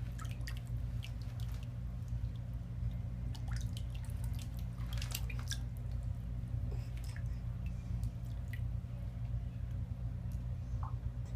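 Bathwater dripping and lightly splashing in a tub: scattered, irregular small drips and plops over a steady low hum.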